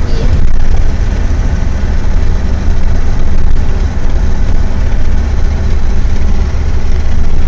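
Steady low rumble of a car's engine and road noise heard inside the cabin.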